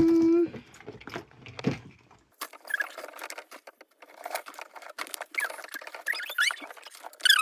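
Small objects being handled and rummaged through: many quick clicks and rustles, with a few short high squeaks near the end.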